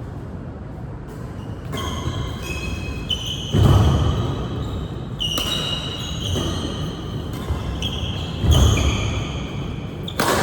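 Sports shoes squeaking on an indoor court floor as badminton players move, with short high squeaks one after another and two heavy thuds of footfalls about three and a half and eight and a half seconds in.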